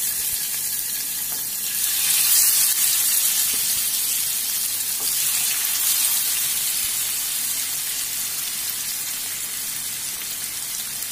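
Marinated fish steaks sizzling as they shallow-fry in hot coconut oil in a pan. The sizzle grows louder about two seconds in as more steaks are laid in, then eases slowly.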